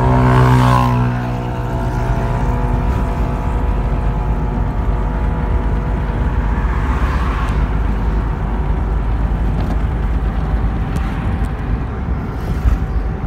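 Steady engine drone and road noise of a moving car, heard from inside it. Other traffic passes: loudest in the first second, and again about seven seconds in.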